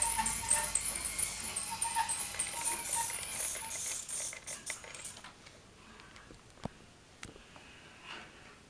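Small electric drive motor and gears of a 1:32 RC Scania R620 model truck whirring with a dense rattling crackle as it drives over a tiled floor. The noise dies down about five seconds in, and two sharp clicks follow.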